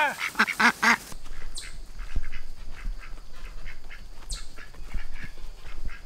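A flock of ducks quacking in quick, loud bursts for about the first second. After that come fainter quacks and goose honks with a few soft low thuds.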